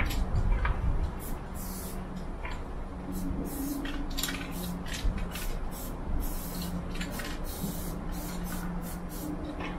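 Aerosol spray paint can hissing in many short bursts, each well under a second, as lines are sprayed on, with a faint steady low hum underneath.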